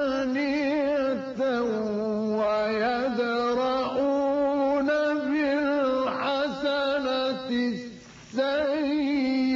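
A man's voice reciting the Quran in the melodic mujawwad style, holding long ornamented notes with a wavering vibrato. There is a short pause for breath about eight seconds in.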